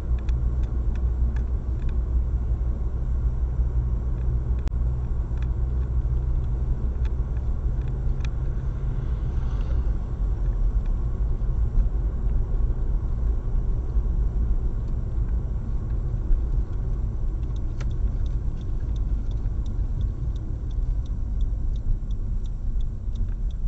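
Car driving, heard inside the cabin through a windshield-mounted dashcam: a steady low rumble of engine and tyre noise, with a few scattered faint clicks. The rumble eases after about ten seconds.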